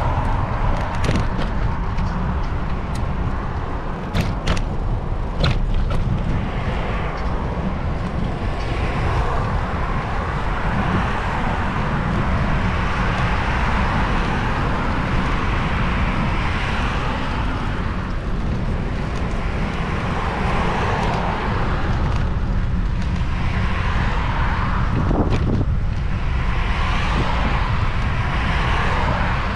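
Steady road noise of a moving vehicle: a low rumble with traffic and tyre hiss, and a few sharp clicks in the first six seconds.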